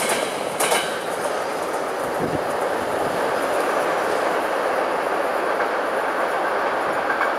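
Freight train of tank wagons moving away down the track after its last wagon has cleared the crossing: a steady noise of steel wheels on the rails, with a sharp click or two in the first second.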